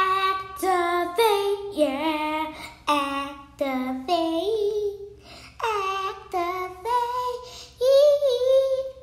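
A child singing a melody in a string of short held notes, the pitch wavering and gliding within each note.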